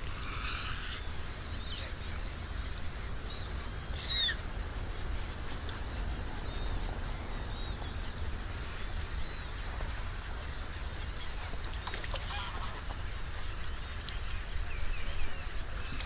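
A large flock of waterbirds calling at once: a dense, steady chatter of many distant calls, with a few louder, nearer calls standing out about four seconds in, around twelve seconds and near the end.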